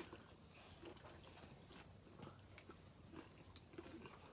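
Faint crunching of a person chewing a crisp fried chicken taquito: irregular small crackles with mouth noise.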